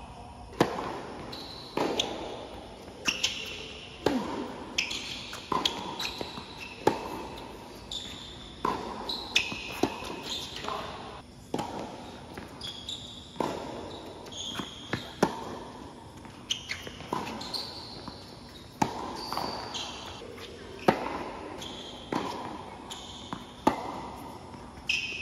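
Tennis rallies on a hard court: racket strikes and ball bounces coming every second or so, with short high shoe squeaks between them, echoing under the court's roof.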